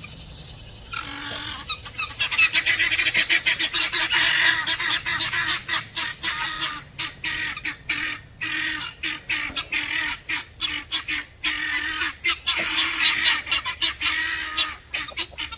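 A flock of young turkeys (poults) calling excitedly as they crowd in for feed: a dense, unbroken run of rapid high-pitched peeps that starts about a second in.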